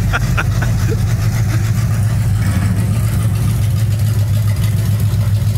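Engine of a stripped-down 1957 Chevrolet pickup running with a steady low note as the bare-chassis truck drives off under its own power.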